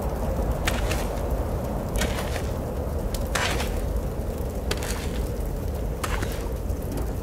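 Steady low desert wind with slow, uneven footsteps in sand, about five steps spaced more than a second apart.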